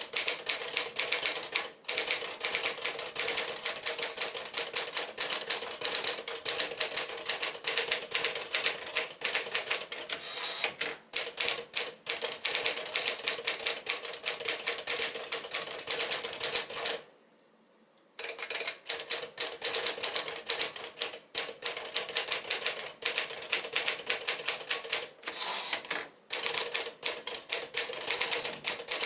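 1955 Smith-Corona Sterling portable manual typewriter being typed on briskly: a fast, continuous run of keystrikes that stops for about a second roughly two-thirds of the way through, then carries on.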